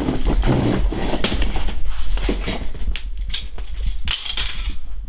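Bare feet stamping and shuffling on a concrete floor in a run of irregular thumps as a man moves about in pain from an airsoft minigun shot to the toe.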